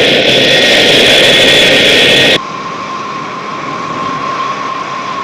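Four-engined Boeing jet airliner on its landing approach, its jet engines running loud with a steady high whine. About two seconds in the sound drops off suddenly to a quieter steady hum with one held tone.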